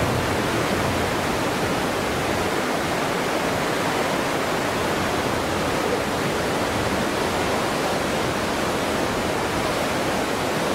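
Rocky mountain stream rushing over boulders: a steady, unbroken wash of water noise.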